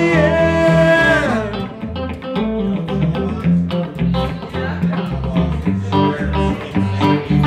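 Live band music: a held note ends the sung chorus line and falls away about a second in. Electric guitar and electric bass then play an instrumental passage with a steady rhythm.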